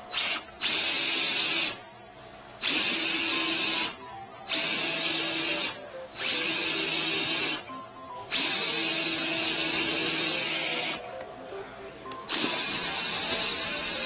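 Cordless drill spinning a flex-shaft drain-cleaning cable in a drain line, run in about six bursts of one to three seconds with short pauses between, to knock epoxy off the inside of the pipe.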